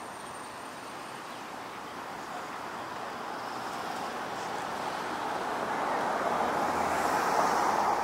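A road vehicle driving past, its tyre and engine noise growing steadily louder over several seconds to a peak near the end.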